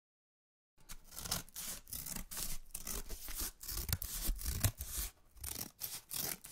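Scratchy rustling noise that starts abruptly about a second in and goes on in quick, irregular rubbing strokes.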